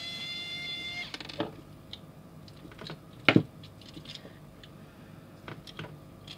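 Electric precision screwdriver whining steadily as it backs out a tiny screw from a plastic toy car's base, cutting off about a second in. Then a series of light plastic clicks and taps as the toy is handled, with one sharp tap about three seconds in that is the loudest sound.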